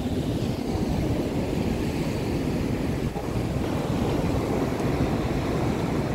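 Wind buffeting the phone's microphone over the steady wash of rough surf on a beach, a continuous noise with most of its weight in the low end.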